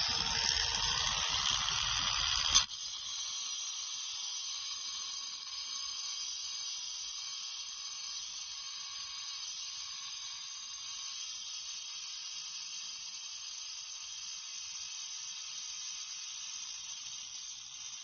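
Makita 18 V cordless angle grinder running with its disc cutting into material. It is loud for the first two and a half seconds, then drops abruptly to a quieter, steady high hiss.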